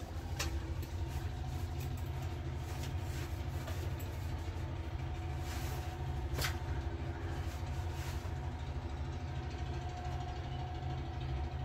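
A steady low mechanical rumble with faint held tones above it, and a couple of sharp clicks, one just after the start and one about six seconds in.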